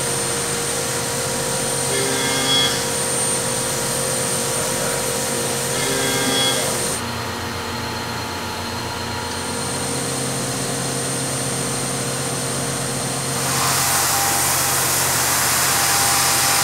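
CNC machining center cutting into a Toyota G16E engine block: steady machine hum with a high spindle whine. The whine drops out about seven seconds in and comes back a couple of seconds later, and a louder hiss rises near the end.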